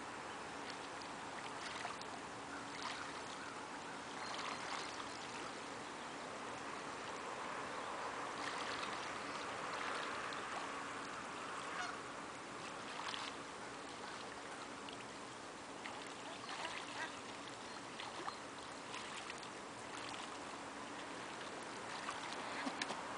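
Canada geese giving short honks now and then over a steady background wash of water noise.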